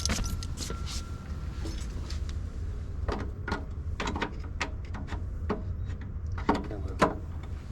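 A string of irregular sharp clicks and knocks, from about three seconds in, from the DC disconnect key being fitted and turned and the SMA inverter being handled as it is switched back on. A steady low rumble sits underneath.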